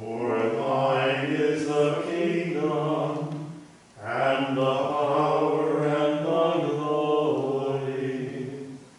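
A man's voice chanting liturgical text on held, mostly level notes, in two long phrases with a short breath about four seconds in.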